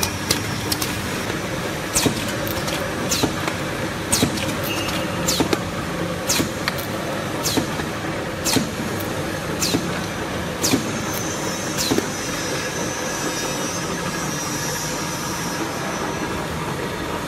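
Popcorn canning line running: a steady machine hum with sharp clacks in a regular rhythm about once a second, which stop about twelve seconds in while the hum goes on.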